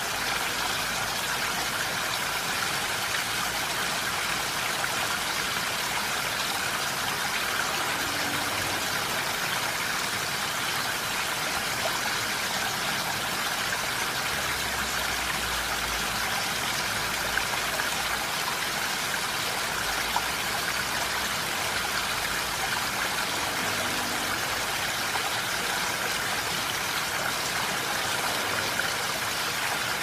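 A flowing stream: steady rushing and trickling water with an even, unbroken level.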